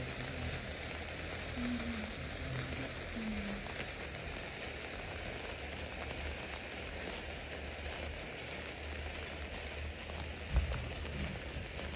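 Several sparkler sticks burning together, giving a steady fizzing crackle of sparks. A single low thump comes about ten and a half seconds in.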